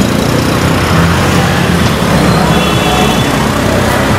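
Small truck's engine running as it drives through deep floodwater, with water splashing and surging around its wheels.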